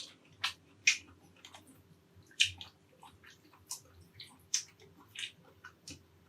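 A person chewing with wet, irregular mouth smacks and clicks, close to the microphone.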